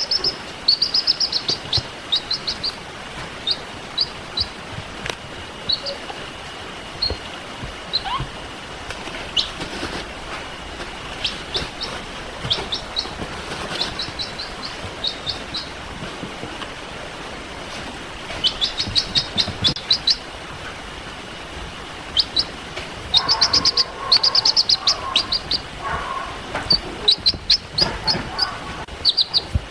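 Baby chicks peeping: short, high peeps in quick runs, with pauses between the runs.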